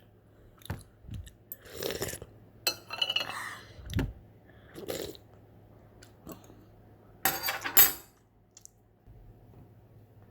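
Eating ramen: utensils clinking against the bowl, with eating sounds in a series of short separate bursts; the loudest comes about seven and a half seconds in.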